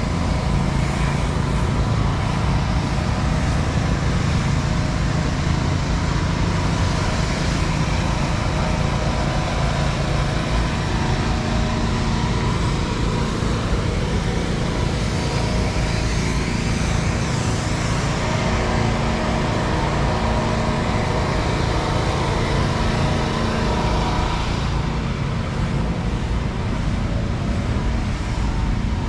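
Vehicle engines running steadily, a continuous low rumble with a steady hum, like traffic in a busy lot.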